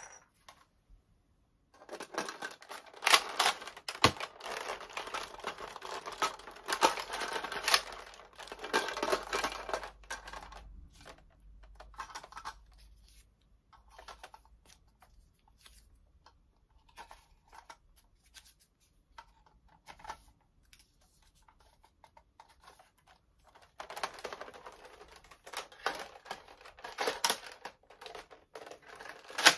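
Hard plastic clicking and rattling as toy foam-dart blasters are handled and foam darts are pushed into a plastic magazine. There are two busy stretches of clatter with scattered clicks between them, and a single sharp snap at the very end.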